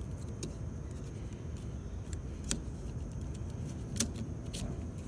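A few light clicks and taps from a Michelin Guardian wiper blade being handled and lined up on the wiper arm, over a steady low background rumble; the sharpest clicks come about halfway and about four seconds in.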